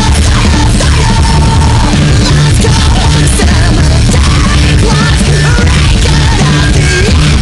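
Loud heavy rock music with electric guitars, over a steady repeating beat.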